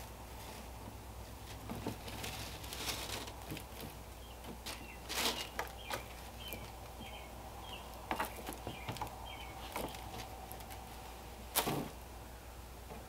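Handling noise from a strip of fabric being wrapped around a bamboo torch pole over a bin with a plastic liner: soft rustling and small clicks, with two louder sharp knocks, one about five seconds in and one near the end, over a low steady hum. A short run of faint high chirps comes between about four and seven seconds in.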